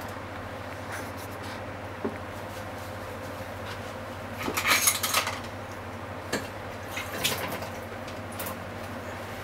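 Clinks and clatter of dishes and utensils in a kitchen: a single click, a louder burst of clatter about halfway through, then a few more clinks. Under them runs a steady low hum.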